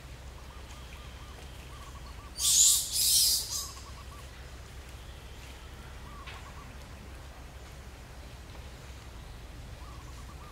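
Faint bird chirps repeating over a low steady outdoor background, broken about two and a half seconds in by a harsh, hissing high-pitched burst that lasts about a second in two parts.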